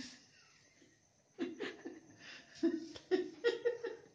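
A toddler laughing in short, high-voiced bursts, starting about a second and a half in and coming quicker near the end.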